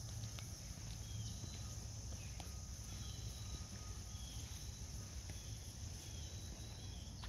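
Crickets trilling steadily in a grassy field, with a few faint short high chirps over the top.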